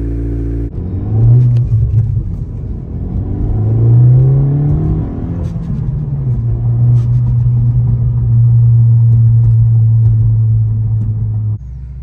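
Honda 11th-gen Civic Si's 1.5-litre turbocharged four-cylinder and catback exhaust heard from inside the cabin while driving. After a brief steady idle, the engine note rises twice under acceleration, then holds steady at cruise, and drops suddenly near the end as the throttle is lifted.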